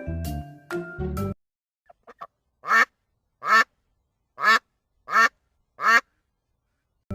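A duck quacking: a few faint quacks, then five loud, evenly spaced quacks. Short background music cuts off about a second in.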